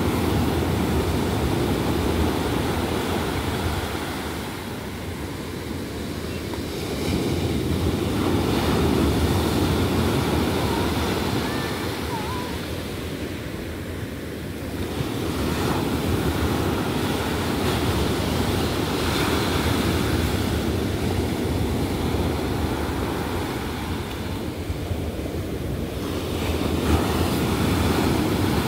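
Ocean surf breaking and washing up a sandy beach: a continuous rushing wash that swells and fades every several seconds as waves break and draw back.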